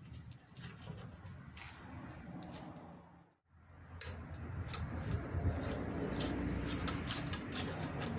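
Scattered metal clicks and handling noise as an overhead valve spring compressor is loosened and taken off a valve spring, with the clicks busier in the second half.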